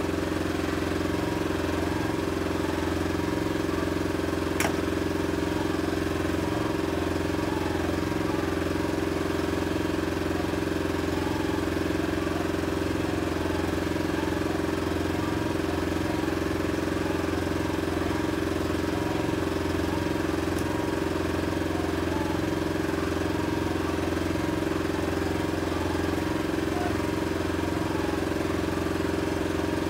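Boat's outboard motor running at a steady, unchanging speed, with a single faint click about four and a half seconds in.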